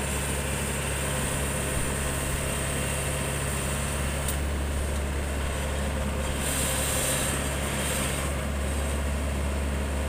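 Yanmar AW70V combine harvester's diesel engine running steadily close by, a constant low hum with no change in speed.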